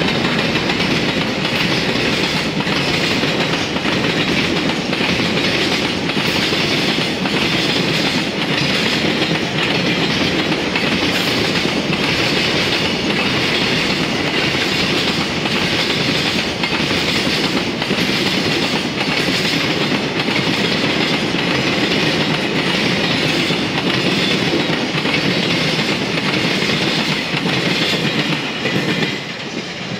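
Container freight train behind an EF210 electric locomotive rolling past on steel rails: a steady rush of wheel noise with regular clickety-clack as the wagons cross the rail joints. The noise drops away near the end as the last wagons go by.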